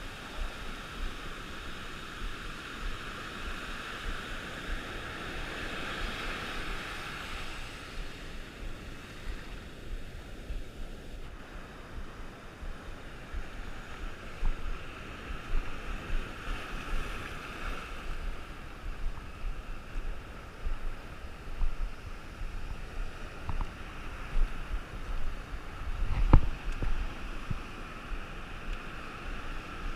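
Rough ocean surf, with waves surging and washing in two swells, and wind buffeting the microphone. A sharp knock comes near the end.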